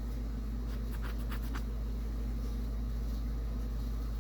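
A steady low background hum, with a few light clicks about a second in as small hand tools are handled.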